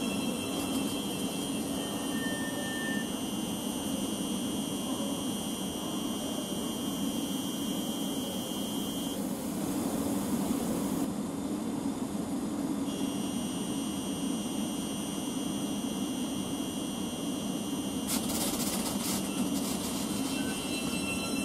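Thameslink Class 700 Desiro City electric train close by, its electrics giving a steady high-pitched whine over a low hum. The whine breaks off for a few seconds near the middle, and there is a short patch of clicking about three-quarters of the way through.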